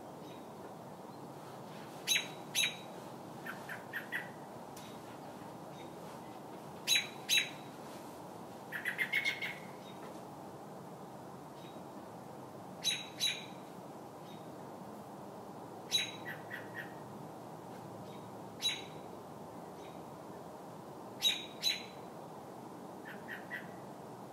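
American robin giving its distress call: sharp, high calls, mostly in pairs a few seconds apart, with softer quick chirps in short runs of three to five between them, over a steady low hiss.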